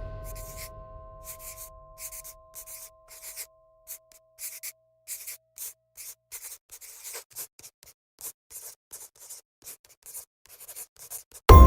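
A pen drawing on paper: a long run of short, scratchy strokes, about two or three a second. Background music dies away at the start, and music comes back in loudly just before the end.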